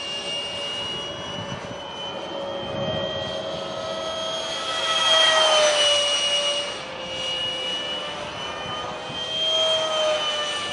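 A Detrum 70mm electric ducted fan on an RC jet whines steadily in flight. It grows louder as the jet passes about 5 s in and again near the end, and the pitch drops after each pass.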